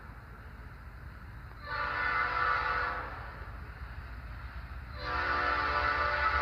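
Diesel freight locomotive air horn being test-sounded: a short blast of its chord about two seconds in, then a second, longer blast starting about five seconds in.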